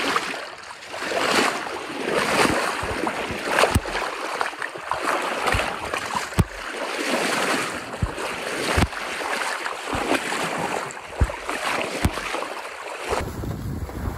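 Bow wave of a Marieholm IF folkboat under sail, rushing and splashing against the hull in uneven surges, with sharp slaps of water against the bow every second or so. Near the end it gives way to low wind noise buffeting the microphone.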